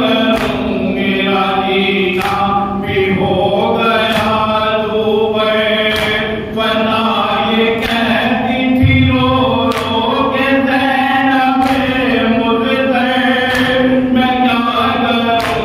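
A noha, an Urdu lament, chanted by a male reciter through a microphone, with steady rhythmic chest-beating (matam) slaps about once a second beneath the chant.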